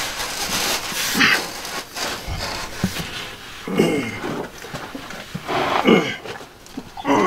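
A man grunting and groaning with effort about four times, some of the groans falling in pitch, as he strains to push foam pool-noodle insulation onto water pipes overhead.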